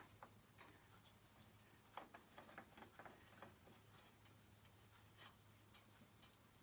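Faint, scattered light clicks and taps of a part being handled and fitted by hand, over a steady low electrical hum.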